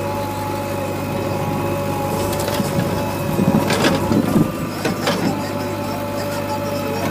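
JCB 3DX backhoe loader's diesel engine running under load with a steady whine as the backhoe digs and swings a bucket of soil. A little past halfway it gets louder and rougher, with a couple of sharp clanks.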